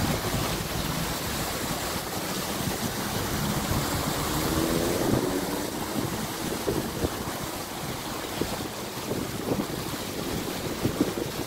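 Steady splashing of fountain water falling into its stone basin, with wind buffeting the microphone.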